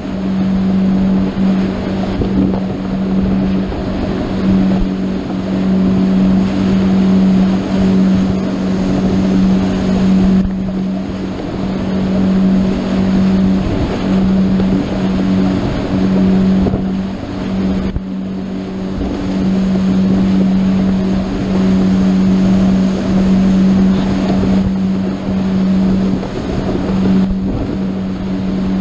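Motorboat engine running steadily at cruising speed, a constant drone, over the rush of water against the hull and wind buffeting the microphone.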